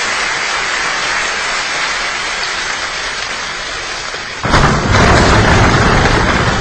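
A large group of people making a rainstorm with body percussion: a steady hiss of patter, and then about four and a half seconds in, a sudden louder, deeper rumble like a downpour with thunder breaking.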